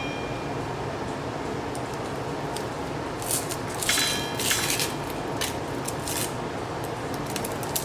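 Dry, papery onion skin crackling as an onion is peeled by hand. It comes as scattered short crackles, most of them from about three to five seconds in, over a steady background hiss.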